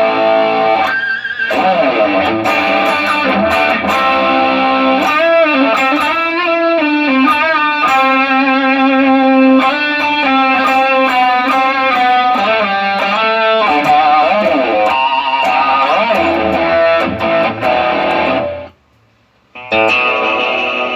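Electric guitar played through a Fractal Audio FM3 amp modeller, melodic single-note lines with bends and vibrato, sounding normally after the unit's power supply board was replaced. The sound cuts out almost completely for about a second near the end, then resumes.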